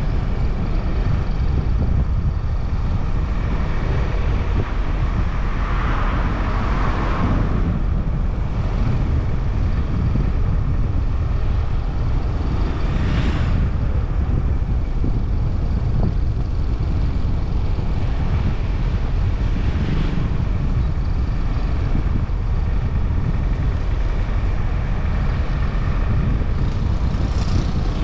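Steady low rumble of road and wind noise from a moving car, with a few brief louder swells: one about six seconds in, one around thirteen seconds, and one near the end.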